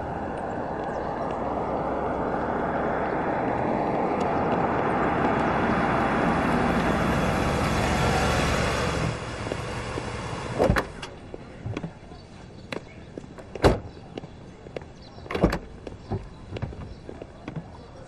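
A 1930s-style sedan drives up, its engine and tyre noise growing louder, then stops abruptly about nine seconds in. After that come several sharp clunks and clicks of its door being opened and handled.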